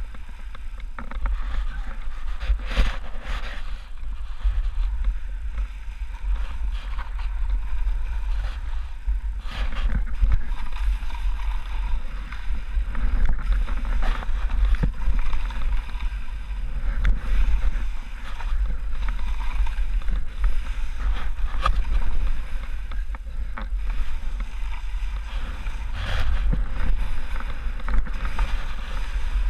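Skis sliding and turning down a snowy slope, with repeated swishes and several sharper scrapes as the edges bite. Under it runs a steady low wind rumble on the microphone.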